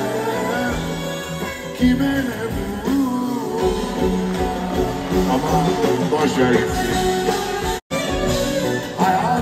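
A live band playing with a male singer, heard through the concert's loudspeakers from among the audience. The audio breaks off for an instant near the end.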